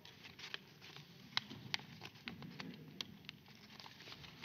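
Quiet ambience of a large parliamentary chamber: several small, sharp clicks and knocks from members at their desks, the clearest about a second and a half in, over faint low background noise.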